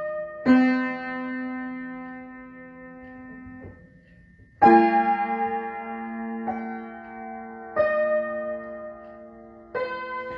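Upright acoustic piano played slowly: chords struck one at a time and left to ring and fade, with a short lull about four seconds in before the loudest chord.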